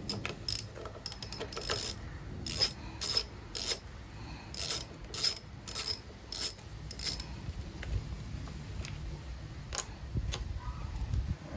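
Socket ratchet clicking as a 7 mm bolt on a lawn mower's carburettor mounting is undone: short runs of sharp clicks for about seven seconds, then two more near the end.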